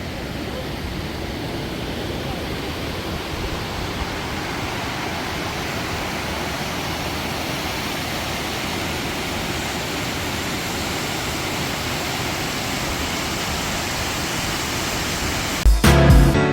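Steady rush of a mountain stream's running water. Guitar and piano music starts near the end.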